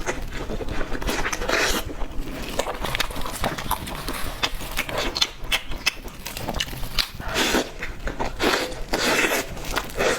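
Close-miked chewing of cake: wet smacks, soft bites and small clicks, coming in quick irregular clusters.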